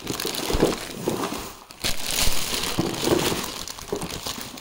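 Packaging crinkling and rustling in irregular bursts as a newly unboxed pair of trousers is handled and unwrapped.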